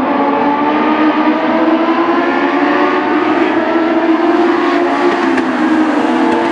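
A pack of Legends race cars at speed around the oval, their Yamaha motorcycle engines running at high revs. Several engine notes overlap, each drifting slightly up and down.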